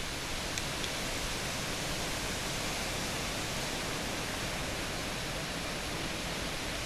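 A steady, even rushing noise with no distinct events, and two faint ticks a little under a second in.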